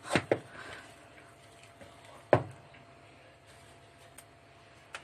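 Kitchen handling while bread dough is kneaded in a bowl: a few sharp knocks and taps, two close together at the start and the loudest about two and a half seconds in, with quiet between.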